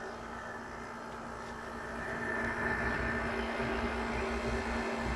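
Kenmore (LG-built) 5250 BTU window air conditioner running with compressor and fan on: a steady hum with a light, dry noise from the fan, which the owner thinks might be slightly dry fan-motor bearings. It gets louder about two seconds in.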